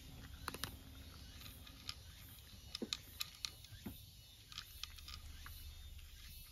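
A cat eating from its dish: faint, irregular small clicks and crunches, bunched about three seconds in.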